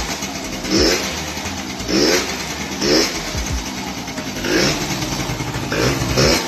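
Motor scooter engine, stripped of its body panels, running with short throttle blips about once a second, each a quick rise in pitch that falls back to the idle.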